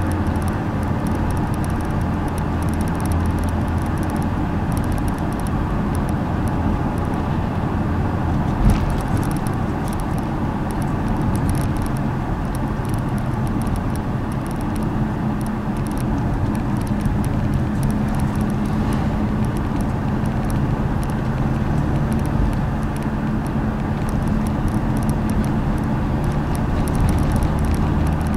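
Car interior noise while driving: a steady engine hum with tyre and road noise, and a single thump about nine seconds in.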